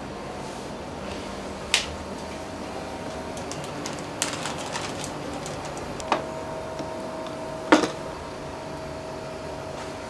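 Clinks and knocks of crockery and utensils being handled while a rice bowl set meal is plated, over a steady kitchen hum. A clink comes about two seconds in, a patter of small clicks follows, then two knocks, the loudest about three quarters of the way through.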